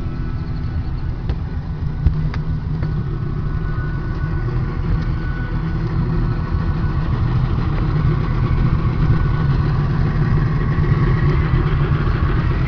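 A 150 hp Yamaha VMAX V6 two-stroke outboard running steadily at low speed with a low rumble, getting a little louder in the second half. There is one short knock about two seconds in.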